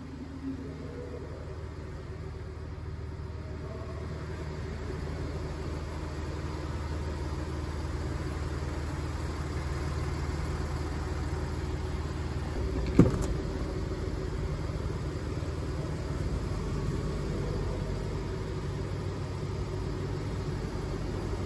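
Volkswagen Amarok's V6 TDI diesel engine idling with a steady low rumble that grows slightly louder over the first several seconds. A single sharp thump stands out about thirteen seconds in.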